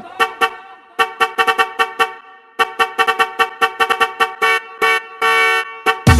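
Truck horn sounded in a fast rhythmic pattern of short blasts, with a brief pause about two seconds in and a longer held blast about five seconds in, used as the horn sample of a dance remix.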